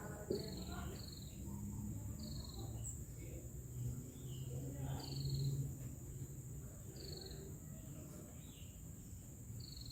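A bird giving short, falling chirps about every one to three seconds, over a steady high insect drone and faint low hum.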